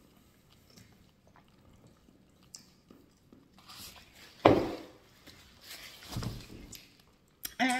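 A person drinking juice from a glass: faint swallowing sounds, a sudden loud sound about four and a half seconds in as the glass comes away from her mouth, then mouth and lip-smacking sounds as she licks her lips.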